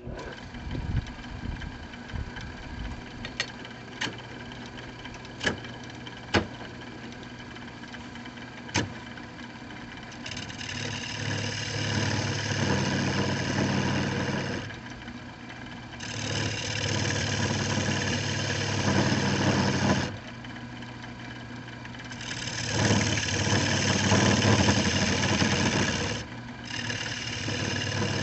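Wood lathe motor running with a steady hum while a gouge cuts the spinning cherry bowl blank. There are a few sharp clicks early, then four cutting passes of several seconds each, heard as a loud scraping hiss of shavings coming off, with short pauses between.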